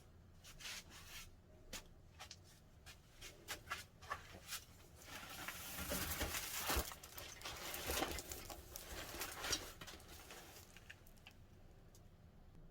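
Handling noises: a run of light clicks and taps, with rustling that swells in the middle and fades again.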